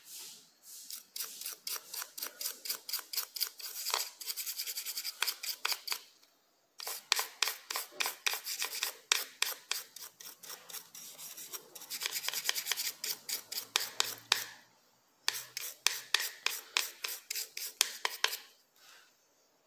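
Toothbrush bristles scrubbing back and forth on a Samsung Galaxy J7 Neo's internals, about five quick strokes a second, in four spells with short pauses between them. The brushing is cleaning oxidation off a contact with isopropyl alcohol.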